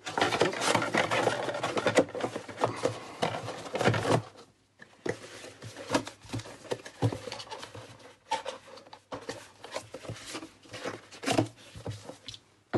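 A cardboard box and its foam packing insert being handled: dense rustling, scraping and tapping for about four seconds, then sparser light knocks and clicks as the pieces are moved and set down.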